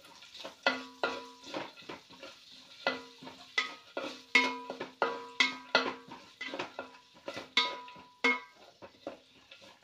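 Wooden spatula stirring rice and vegetables in an aluminium pot, knocking against the pot about twice a second in an uneven rhythm. Each knock leaves the pot ringing briefly.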